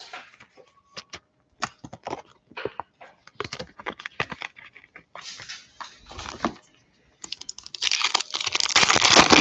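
Foil trading-card pack wrapper being handled and torn open: scattered crinkles and clicks, then a dense, louder crinkling rip over the last two seconds.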